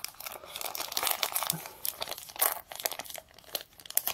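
Small white paper packet crinkling and rustling in the hands as it is worked open, in a quick run of sharp little crackles.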